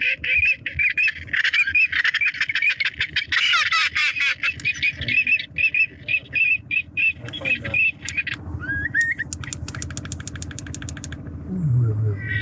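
A flock of birds calling: rapid, evenly repeated short high chirps, with many calls overlapping about three to four seconds in. The calls thin out after about eight seconds and give way to a fast run of clicks.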